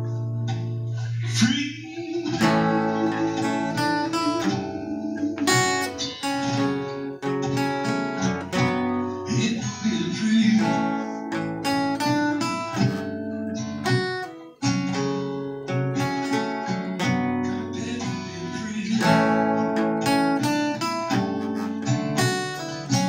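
Acoustic guitar strummed through a chord progression, playing steadily throughout.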